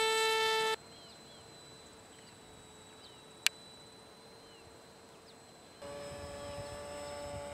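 Electric RC model plane's motor and propeller whining steadily, cutting off abruptly under a second in. A few seconds of quiet follow, with faint bird chirps and a single sharp click, before a steady motor whine returns near the end.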